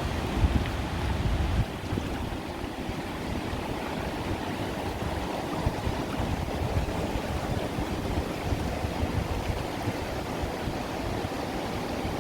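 Ocean surf washing onto a beach: a continuous rush of water, with a heavier low rumble for the first second and a half that then eases slightly.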